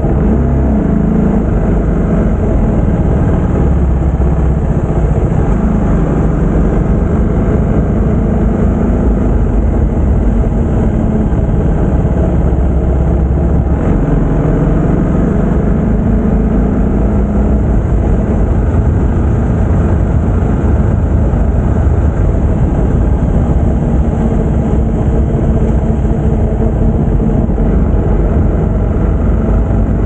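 TVS Apache RR 310's single-cylinder engine running while riding, its pitch drifting up and down as the revs change, over a steady rush of noise.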